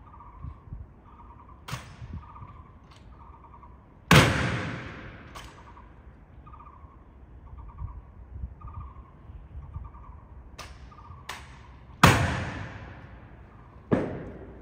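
Honor guard drill: sharp, echoing cracks of rifle butts and boot heels striking the stone pavement. There are two very loud strikes about 4 and 12 seconds in, a lighter one near the end, and several smaller clicks between. A bird calls faintly and repeatedly underneath.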